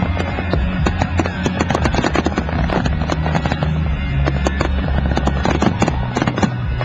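Fireworks popping and crackling in quick, irregular succession over music with steady low bass notes.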